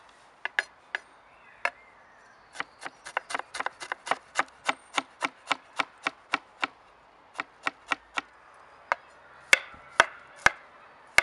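Chef's knife chopping ginger and then garlic cloves on a wooden cutting board: a few scattered knocks, then a quick even run of about four strokes a second, then slower, harder single strikes near the end.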